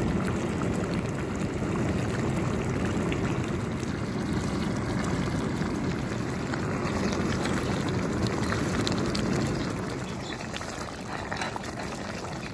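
Thick curry of river snails and bamboo shoot bubbling and popping in a pot as it cooks, stirred with a spoon; a little quieter from about ten seconds in.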